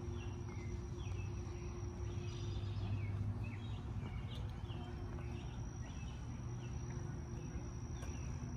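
Outdoor ambience: birds chirping again and again, over a steady high insect trill that drops out for a couple of seconds in the middle, and a low steady rumble.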